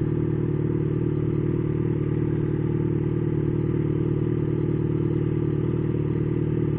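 Yamaha XJ6's 600 cc inline-four engine idling steadily while the motorcycle stands still.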